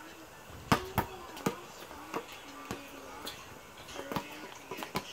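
Background music with a repeating held melody note, playing over several sharp knocks of a basketball bouncing on pavement, the loudest about a second in.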